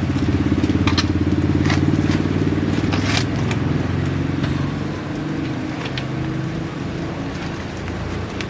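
A motorcycle engine running close by, a steady low hum that weakens about halfway through as it moves off, with scattered short clicks and scrapes on top.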